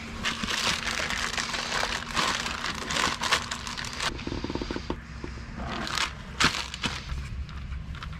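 Plastic sheeting crinkling and rustling in irregular bursts under gloved hands as the fibreglass mount is handled on it, with a few sharp snaps, the loudest about six and a half seconds in.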